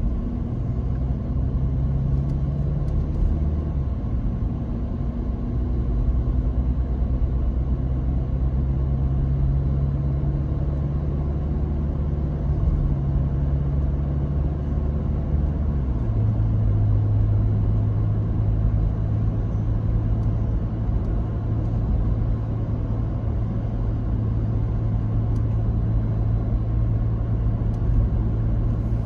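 A car driving at road speed: steady low engine hum and tyre rumble. The engine tone steps down in pitch about sixteen seconds in, then holds steady.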